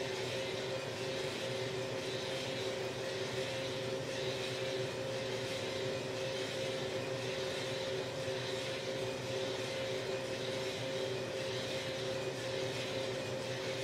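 Small drum coffee roaster running steadily: an even motor and fan hum with two steady tones and a rushing airflow noise over it, swelling slightly about once a second.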